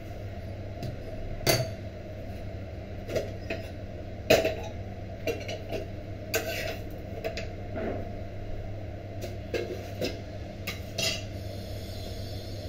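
An iron tawa and utensils knocking and clinking against a gas stove, about ten sharp metal knocks scattered through, the loudest two about a second and a half and four seconds in, over a steady low hum.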